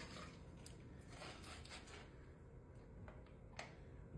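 Near silence: faint wet scrapes and a scatter of soft clicks from hands and a rib on wet clay on a potter's wheel, over a low steady hum.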